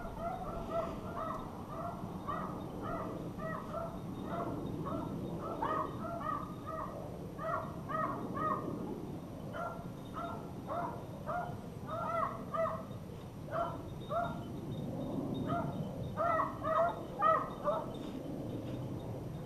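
Rabbit-hunting dogs baying on a rabbit's track: a run of short, pitched bays, several overlapping at times, coming irregularly and loudest near the end.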